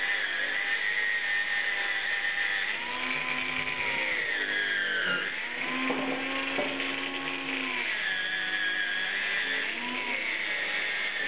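Angle grinder with a cutting disc running and cutting through a metal handlebar tube. Its whine repeatedly drops in pitch as the disc bites into the metal under load, then climbs back as the load eases.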